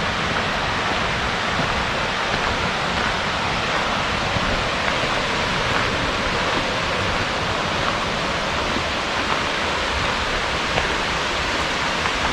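Waterfall rushing steadily, a full, even wash of falling water.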